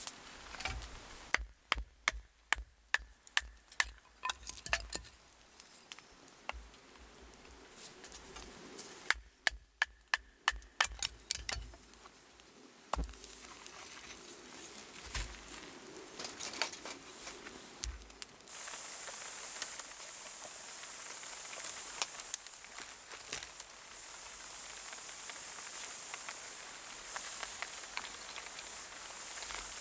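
Two quick runs of sharp snaps or clicks, about two or three a second, then a steady high hiss that sets in about two-thirds of the way through, over a campfire.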